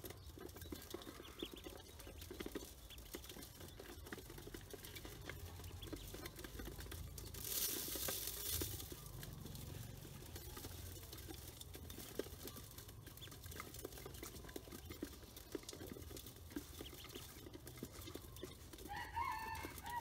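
Ducklings' feet and bills pattering and tapping on an aluminium basin as they peck at grain, a steady run of small taps and scrapes. A brief rustling hiss comes about eight seconds in, and a short high call near the end.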